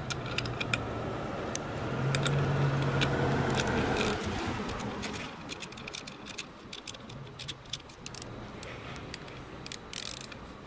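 Small flex-head ratchet clicking in short, irregular runs as a fastener is screwed into the steel head of a breaker bar, with light metal clinks. A low steady hum swells about two seconds in and fades after about five seconds.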